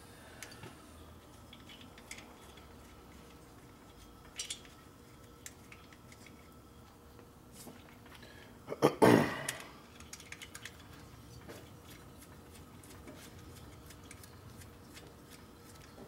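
Light metallic clicks and clinks of hand work on a Harley-Davidson Ironhead Sportster engine's top end as the cylinders are fitted, with one much louder metal clatter about nine seconds in.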